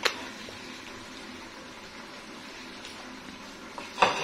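Thickened cream sauce simmering steadily in a pan, with a sharp knock at the start and a louder clatter near the end.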